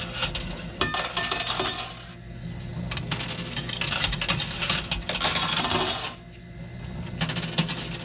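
Quarters dropping one after another into an arcade coin pusher, clinking onto the coin-covered shelves in quick clusters with two short lulls, over a steady low machine hum.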